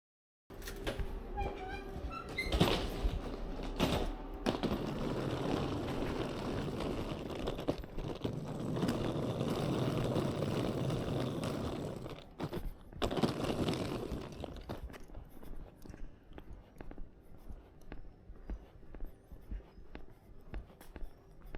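A door thunks open and shut with some knocking and scraping, followed by footsteps at roughly two a second.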